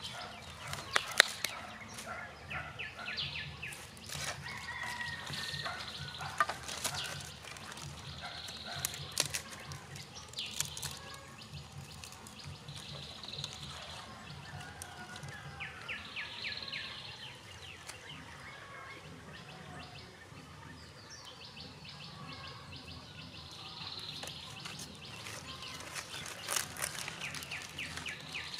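Birds calling over and over in short bursts, with sharp clicks and cracks of dry sticks and twigs being handled and laid together on dry ground. The stick clicks are loudest about a second in and again near the end.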